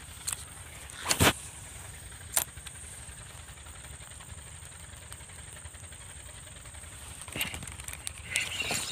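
Steady low drone of the gold-dredge suction engines working in the distance, with a faint high hiss over it. A few short sharp clicks and knocks cut through, the loudest about a second in and another around two and a half seconds.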